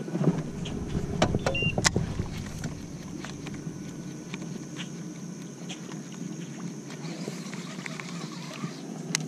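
Electric bow-mounted trolling motor running with a steady hum. A few sharp clicks come about one to two seconds in.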